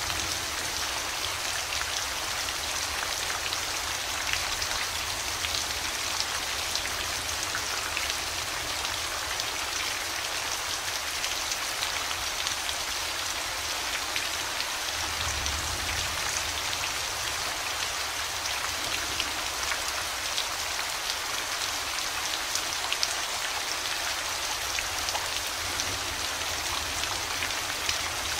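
Steady rainfall: a dense hiss of raindrops with scattered single drop ticks, and a brief low rumble about halfway through.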